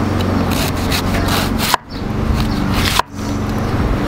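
Chef's knife slicing a fennel bulb very thin on a wooden cutting board: steady scraping strokes of the blade through the bulb and against the board, with brief breaks about two and three seconds in.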